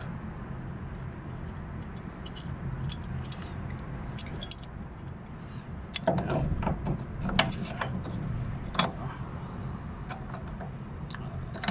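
Metal mounting brackets of a truck bed cover clinking and clicking against each other and the pickup's bed rail as they are handled and clamped on by hand, with louder clicks from about six to nine seconds in. A low steady hum lies underneath.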